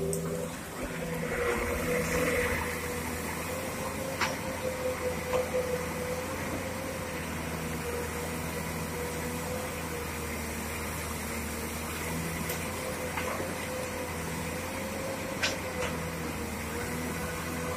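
Komatsu PC200 excavator's diesel engine running steadily, with a steady whine on top and a few sharp knocks scattered through.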